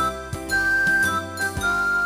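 Cheerful background music with tinkling, bell-like melody notes over a steady beat.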